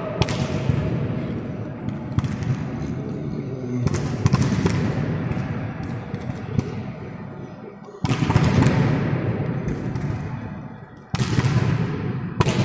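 Volleyballs being struck and bouncing on an indoor court, sharp slaps and thuds ringing through a large hall over a steady background din. Louder impacts come suddenly about 4, 8 and 11 seconds in, each dying away slowly in the echo.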